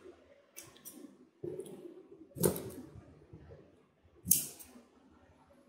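Scissors cutting through the plastic packing straps on a cardboard box: a few separate sharp snips and rustles, the loudest about two and a half seconds in and just past four seconds.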